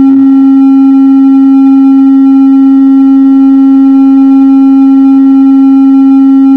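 A loud, steady howl at one unchanging pitch from the public-address system: microphone feedback.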